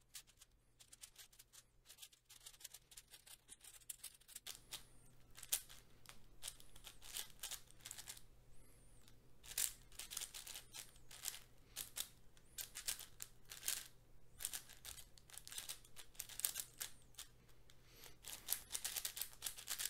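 MGC 6x6 speedcube being turned quickly in the hands: a faint, dense run of irregular plastic clicks and clacks from the layers, sparse for the first few seconds and then thick and continuous. The cube is straight out of the box, with only its tension screwed tighter and no lubricant yet.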